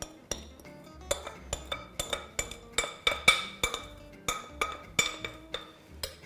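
A metal spoon knocking and scraping against a glass mixing bowl, a quick run of ringing clinks about four a second, as crumbly dough mix is knocked out of the bowl.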